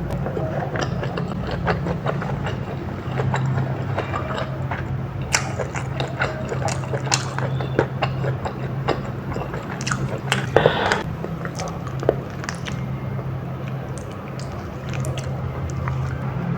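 Close-miked chewing and biting with wet mouth clicks and smacks, with one louder burst about ten and a half seconds in, over a steady low hum.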